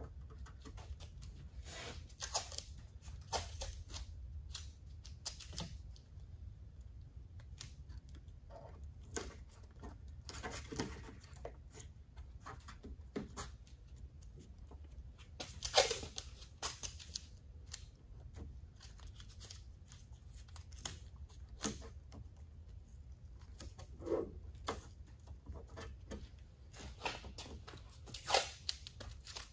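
Painter's tape being pulled off the roll and torn into strips, then pressed onto the rubber trunk seal, in scattered short bursts of tearing and handling noise over a low steady hum. The sharpest tears come about halfway through and near the end.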